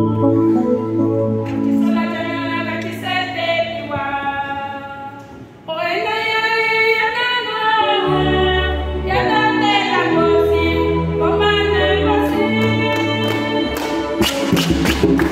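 Church choir singing a hymn over a keyboard accompaniment with a low, steady bass. The sound dips briefly a little over five seconds in, then comes back. Near the end the singers start clapping in rhythm.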